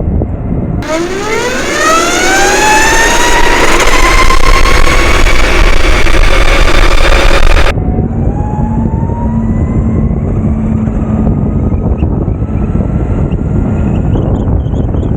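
Flipsky Lightning electric skateboard's motor whining as it accelerates, the pitch climbing steeply and then levelling off, with wind noise on the microphone. The whine cuts off suddenly about eight seconds in, and a fainter whine rises slowly after it.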